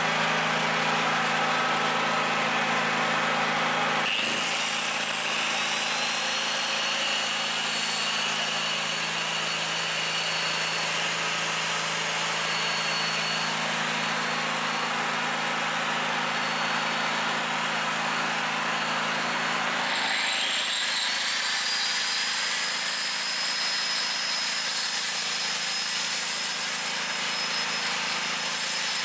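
BG-6500 petrol generator's 13-horsepower four-stroke engine running steadily while an angle grinder plugged into it spins up about four seconds in with a rising whine and runs free. About twenty seconds in the whine cuts off and a grinder spins up again to a higher steady whine.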